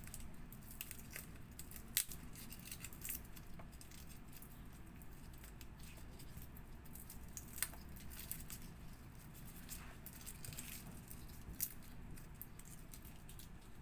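Garlic cloves being peeled by hand: faint crackling and rustling of the dry, papery skins, with three sharp clicks spread through.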